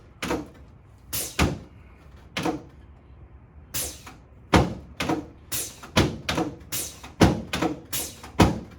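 A series of sharp knocks from a chiropractic adjustment on a treatment table, about a dozen of them, spaced out at first and then coming about twice a second in the second half.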